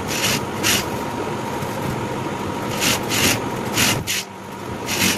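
Industrial single-needle sewing machine stitching at a steady run, with fabric rubbing as it is fed. The stitching stops about four seconds in, leaving the motor's steady hum.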